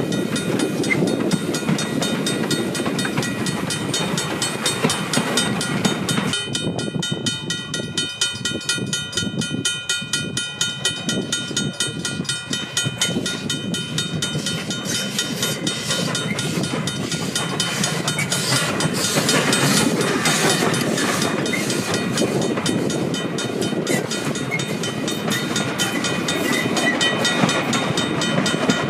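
1872 F class saddle-tank steam locomotive hauling its carriages past, with a rapid, regular beat and rail clatter throughout. A steady, high ringing tone is held for about eight seconds partway through.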